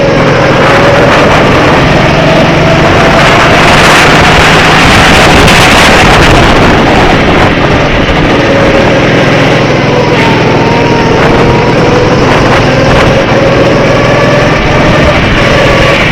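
Go-kart's small engine running hard, its pitch rising and falling as the kart speeds up and slows, over a steady rushing noise.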